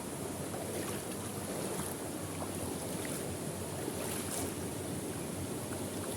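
Steady rush of falling water from a waterfall, with a few faint clicks.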